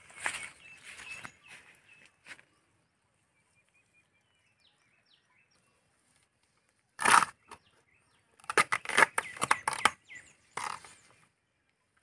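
Fibrous outer layers being ripped and peeled by hand from a freshly cut palm stem: short tearing, rustling bursts. Several come in the first two seconds, one loud rip about seven seconds in, then a quick run of them around nine seconds and one more shortly after.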